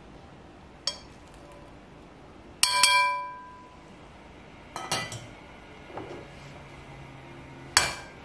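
A metal mesh strainer knocking against the rim of a glass mixing bowl as cooked fusilli are tipped in. The loudest knock, a few seconds in, is a bright ringing clink that dies away over about half a second. Several smaller clinks and soft taps follow.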